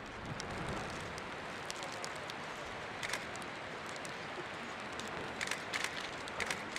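Steady outdoor hiss, like wind or distant rushing water, with a few short faint clicks.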